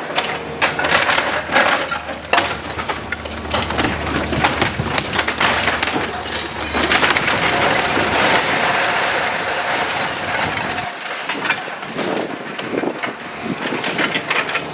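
Excavator demolishing a timber-framed house: wood cracking, splintering and crashing in a continuous run of sharp knocks and breaks, with the digger's engine running low underneath for the first half.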